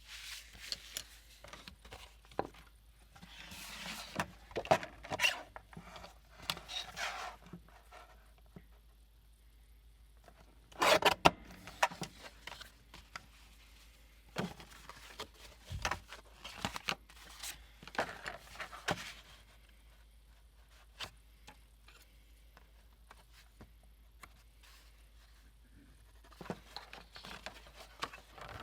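Paper and packing materials handled on a tabletop: intermittent rustling, scraping and light taps with quiet gaps between, and a louder cluster of sharp clicks and rustles about a third of the way through.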